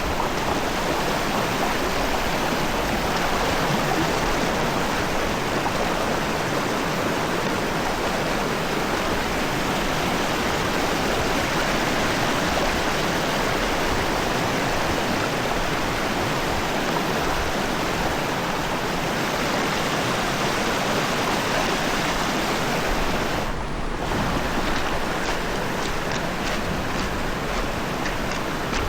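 Steady rushing of a braided river's current, an even wash of water noise.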